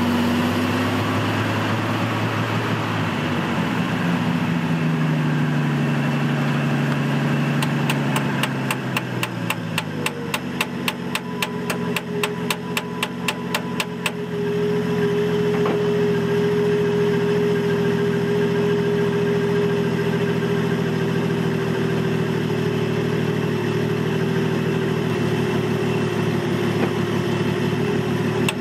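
Old 1967 Ford F250 truck engine running at a rough idle, its speed sagging in the first few seconds and then settling as the carburetor is adjusted to make it hold an idle. The engine is fed by a rigged electric fuel pump from a separate tank. A regular ticking, about three or four a second, runs for several seconds in the middle and comes back near the end.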